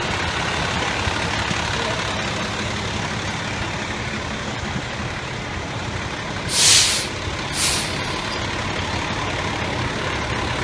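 FDNY fire engines and a tower ladder truck rolling slowly past at close range, their diesel engines rumbling steadily. Two short air-brake hisses come about a second apart, some six and a half seconds in.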